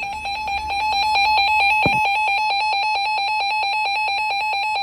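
Emergency alert attention tone: a loud, steady electronic alarm tone with a rapid, even pulsing. It cuts off abruptly at the end, marking the start of an emergency alert broadcast.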